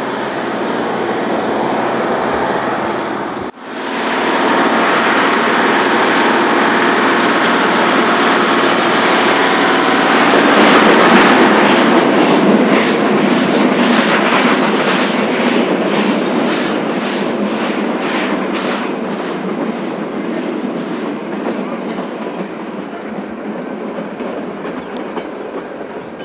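Italian-built Mallet steam locomotives working hard upgrade. A steady rush of exhaust and running gear has regular chuffs about twice a second coming through in the middle, and then it fades away.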